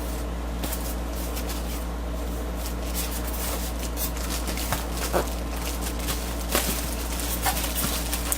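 Rustling and light clicks of boxed compressor parts and packaging being handled, over a steady low electrical hum. The clicks get more frequent and sharper from about halfway in.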